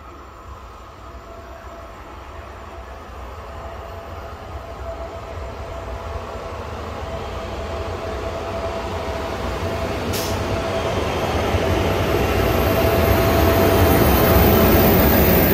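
Electric locomotive-hauled passenger train approaching and passing close by, its rumble growing steadily louder, with a steady high tone from the wheels and rails rising along with it. One brief sharp click about ten seconds in.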